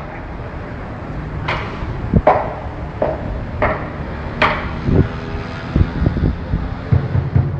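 Lion dance drum struck with sticks in scattered, irregular hits: about five sharp strikes in the first half, then a few duller low thuds.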